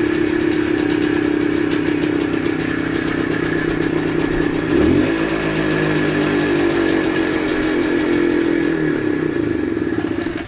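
Minsk 125's single-cylinder two-stroke engine running steadily, with one quick throttle blip a little before halfway that sends the pitch sweeping up before it settles back.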